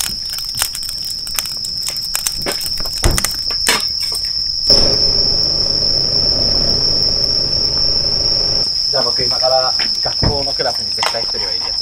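A wood campfire crackles and pops over a steady high trill of night insects. About five seconds in, the crackling stops and a low steady hum comes in under the insects, with faint voices near the end.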